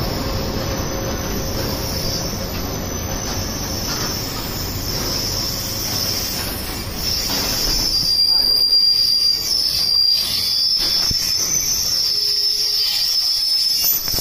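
Freight train of boxcars and tarp-covered open wagons rolling past close by, with steady wheel and rail noise. About halfway through a high, thin wheel squeal sets in and grows louder, with a few short knocks from the passing wagons.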